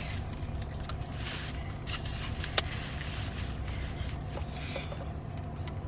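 Steady low hum of a running car, heard inside the cabin, with a single sharp click about two and a half seconds in and a few faint ticks and rustles.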